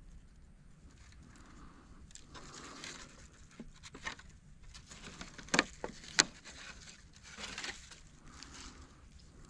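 Handling noises: soft rustling and scraping, with two sharp knocks close together a little past halfway.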